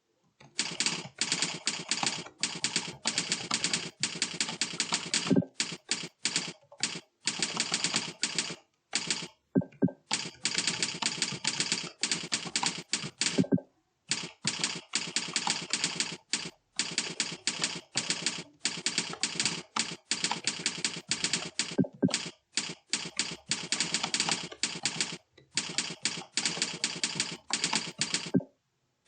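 Fast typing on a computer keyboard: rapid key clicks in long runs, broken every few seconds by short pauses.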